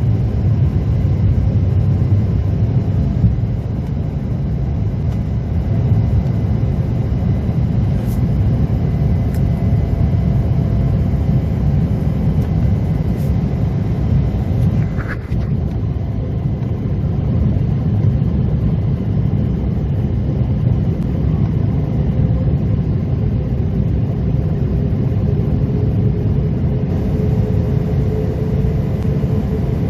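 Airliner engines running with a loud, steady low rumble, with a faint tone rising slightly near the end.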